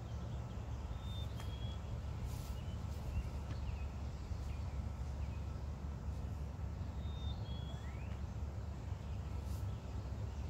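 Steady low outdoor rumble, with birds chirping a few short high notes: a pair about a second in, another pair about seven seconds in, and a quick rising note just after.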